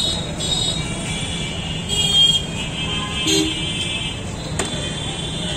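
Busy street ambience: a steady traffic rumble with short vehicle-horn toots, and a single sharp click about four and a half seconds in.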